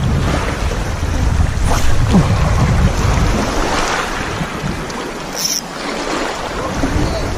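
Wind buffeting the microphone over the sound of sea water, a heavy low rumble that is strongest for the first three seconds and then eases off.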